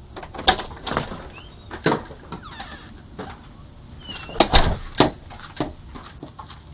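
A door being opened and shut, with footsteps, heard through a doorbell camera's microphone: a run of sharp knocks and clatters, loudest about half a second, two seconds, and four and a half to five seconds in, with two short squeaks.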